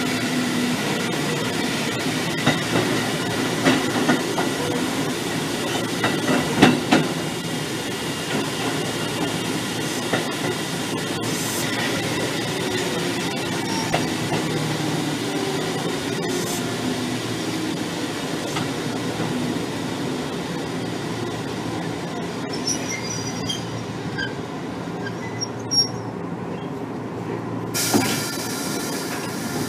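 Running noise inside a Kotoden 1300-series electric car (ex-Keikyu old 1000-series), with a whine from its DC traction motors and gears slowly falling in pitch as the train runs between stations. Wheels click now and then over rail joints, and there is a short hiss near the end.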